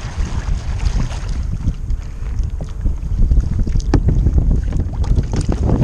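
Wind buffeting the microphone of a camera mounted low on a kayak, with the light splashes and knocks of paddling. There is one sharp knock about four seconds in.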